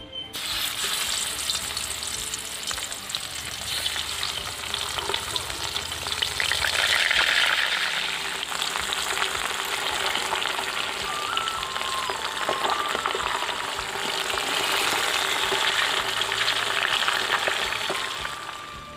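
Small turmeric-coated puti (barb) fish frying in hot oil in a metal wok, a dense crackling sizzle. It starts suddenly as the fish go into the oil and fades near the end.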